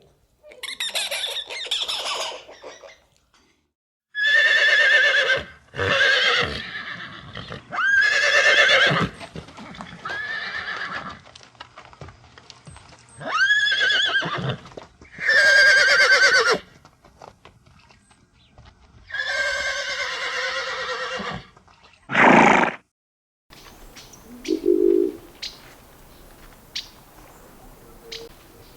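Horses whinnying: a string of about nine loud, high, quavering neighs, each falling away in pitch. After a cut near the end, the sound drops to faint clicks and two short, low coos.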